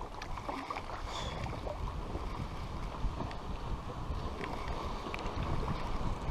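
Light wind buffeting the microphone on a kayak, a steady low rumble, with a few faint small ticks and knocks over it.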